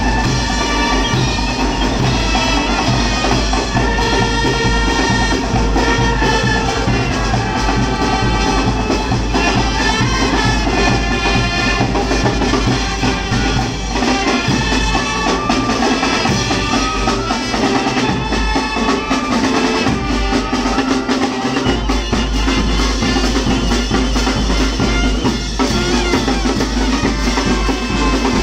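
Marching brass band playing: tubas, sousaphone and horns holding sustained notes over a steady bass drum and snare drum.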